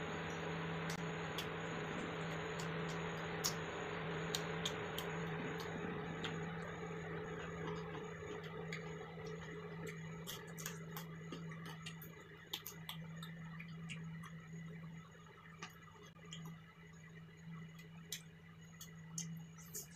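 Close-up eating sounds: a person chewing noodles and fritters, with soft wet mouth noises and scattered sharp little clicks from the metal fork and tray. A steady low hum lies underneath, and a hiss fades out in the first few seconds.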